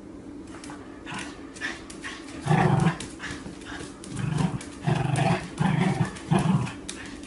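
A dog giving five short, loud, deep vocal bursts: one about two and a half seconds in, then four more in quick succession from about four seconds in, over a steady low hum.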